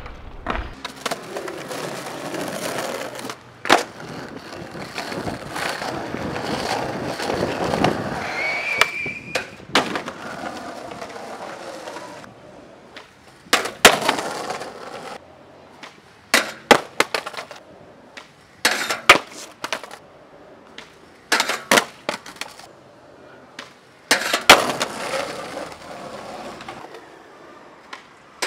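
Skateboard wheels rolling over rough concrete, broken by sharp clacks of the tail popping and the board slamming down. There are several tries in a row at stair handrails, and the knocks come thick in the second half.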